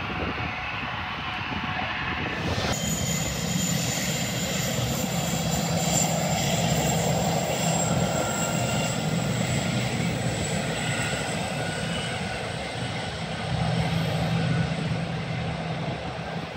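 Airliner's engines running steadily as the aircraft moves at the airport, with a high whine that comes in suddenly about three seconds in.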